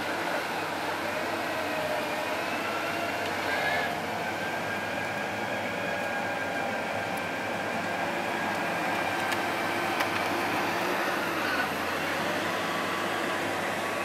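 Fiat-Hitachi D180 crawler bulldozer at work: its diesel engine running steadily under the clatter and squeal of its steel tracks.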